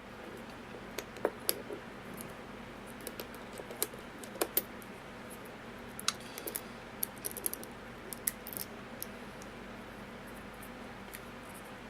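Irregular small clicks and taps of metal padlock parts and a tool being handled while an American Lock 1100 padlock is put back together, dying down after about nine seconds.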